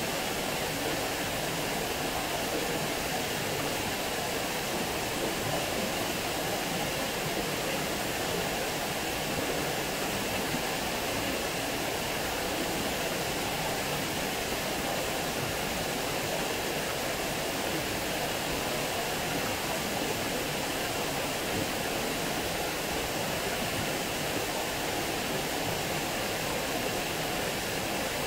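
Water pouring over a small weir and splashing into the pool below: a steady, unbroken rush of falling water.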